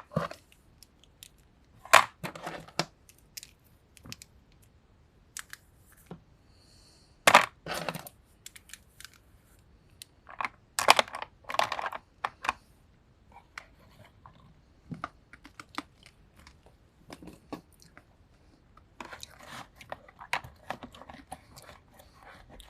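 Small plastic and rubbery fidget toys being handled and sorted. Scattered clicks, clatters and crinkling rustles, with louder handling noises about two, seven and eleven seconds in.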